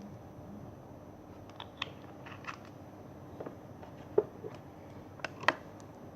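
A few scattered sharp clicks and pops, the loudest about four and five and a half seconds in, over a faint steady hum.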